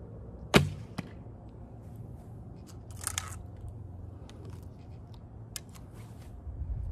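A single shot from a Hoyt Satori recurve bow set to an 8.5-inch brace height: a sharp, loud release with a low thump about half a second in, followed about half a second later by a smaller crack. A brief rustle comes a couple of seconds later.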